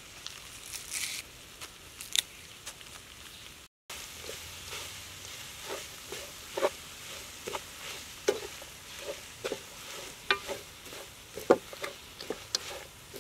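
A spatula stirring a leafy stir-fry in a metal wok, with irregular clinks and scrapes against the pan over a sizzle. The sound drops out briefly about four seconds in.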